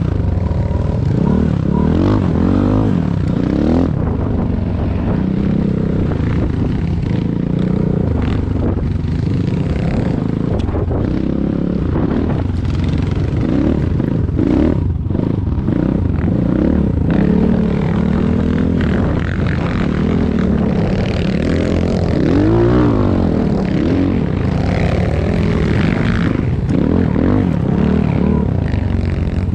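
Enduro motorcycle engine running under load, its pitch rising and falling again and again as the throttle is worked on and off.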